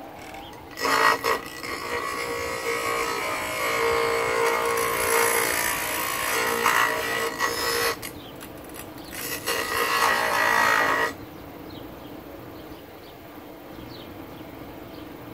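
Bench grinder with an oak wood blank pressed against its spinning wheel, making a loud grinding rasp over the motor's steady hum. The grinding starts about a second in, pauses briefly after about seven seconds, then comes back for a second short pass. After that the motor hums on alone.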